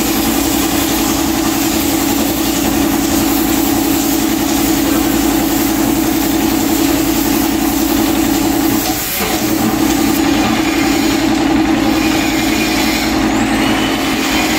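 Steady drone of an air compressor running, under the hiss of a gravity-feed spray gun spraying a clear coat. The drone dips briefly about nine seconds in.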